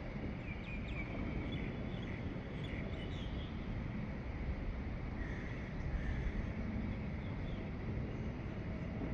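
Faint dawn bird chirps, a cluster of short calls in the first few seconds and a few more midway, over a steady low rumble of background noise that is the loudest thing heard.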